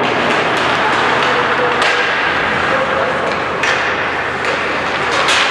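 Ice hockey game heard in an arena: a steady din of skates on ice and voices, cut by several sharp clacks of sticks and puck.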